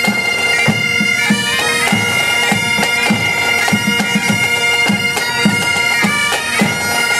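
A pipe band's Great Highland bagpipes playing a tune over steady drones, with a regular low beat underneath.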